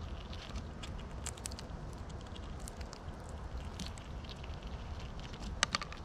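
Squirrels scrabbling and feeding close to the microphone: scattered light clicks and taps, with a quick flurry of clicks near the end, over a steady low rumble.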